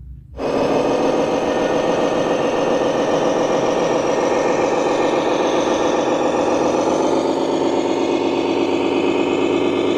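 Diesel truck engine sound of a radio-controlled Volvo FH16 tanker model, running steadily and loudly, starting almost at once.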